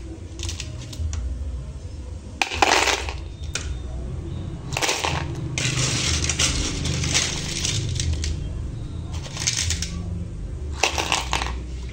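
Boiled sea snail shells clattering against each other and the aluminium pot as they are scooped out with a plastic spatula and tipped into a plastic bowl, in about six bursts of rattling, the longest a few seconds long.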